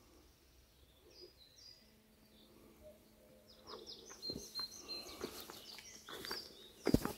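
Faint chirps of small birds, then from about four seconds in footsteps on the dry forest floor: a series of soft crunches and snaps, the loudest just before the end.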